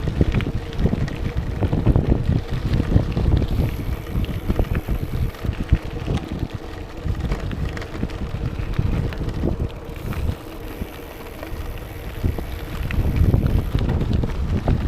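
Wind buffeting the microphone of an action camera on a moving gravel bike, an uneven gusting rush that rises and falls.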